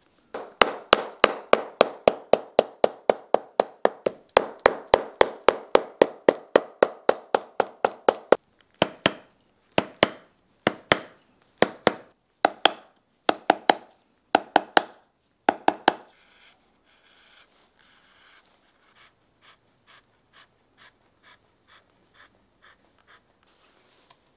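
Shoemaker's hammer striking the leather welt of a hand-welted boot on its last in quick, even blows, about four or five a second, then slowing to about two a second. Fainter, lighter taps follow in the last third.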